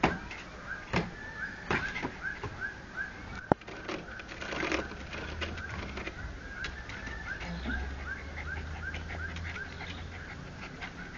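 A bird chirping over and over, short chirps about three a second, with scattered taps and knocks, one sharp click about three and a half seconds in.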